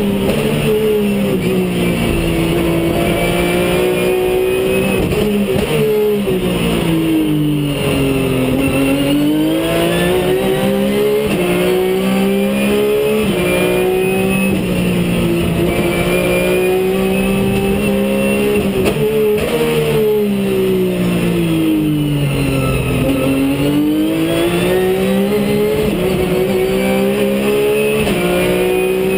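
Race car engine heard from inside the cockpit at full effort, its pitch climbing through the gears and dropping sharply at each upshift. Twice, about a third of the way in and again past two thirds, the engine note sinks slowly and then climbs again.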